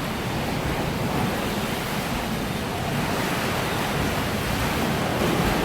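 Water in a cruise ship's swimming pool sloshing and surging steadily as the ship rolls in heavy seas; the churning pool is a sign of big, strong waves outside.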